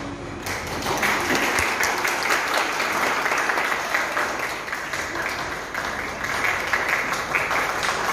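Audience applause: many people clapping steadily, starting about half a second in.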